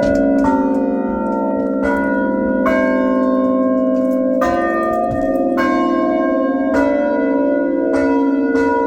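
A 100-year-old Meneely chime of tuned bells, renovated, playing a tune: bells struck one after another at an uneven pace, about eight strokes, each ringing on and overlapping the next.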